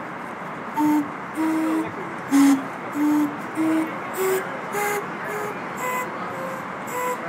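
Pneumatic calliope (the home-built Pneumatophone) played one key at a time: about a dozen short whistle-like toots, each with a hiss of air, wandering up and down in pitch in a halting, uneven tune that starts about a second in.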